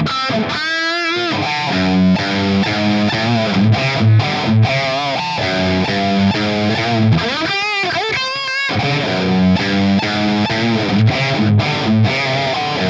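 Knaggs Kenai electric guitar with Seymour Duncan Seth Lover humbuckers, played through a lightly distorted amp: a run of single-note lead lines, with two long bent notes held with wide vibrato, about a second in and again around eight seconds.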